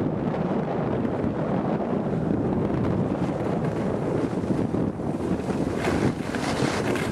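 Wind buffeting the camera microphone while filming on a moving ski slope: a steady, loud low rumble.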